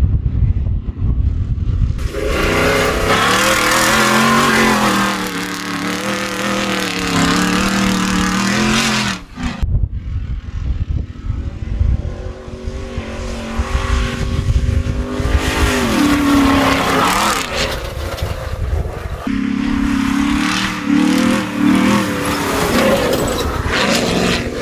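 Modified Ford Raptor's engine running with the revs rising and falling, heard through long-tube headers and a Corsa Xtreme exhaust. The sound drops out briefly a little after nine seconds in.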